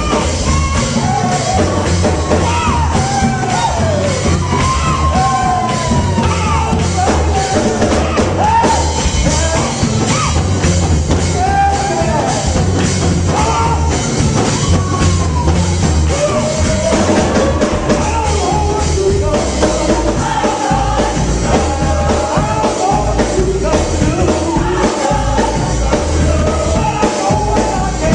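Church praise team performing live: a voice singing gliding, held melodic lines over a band with drum kit and bass keeping a steady beat.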